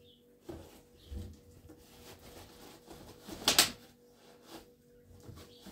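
A plastic sack and a plastic bottle rustling and crinkling as they are handled, with a few soft knocks and one loud crackle about three and a half seconds in.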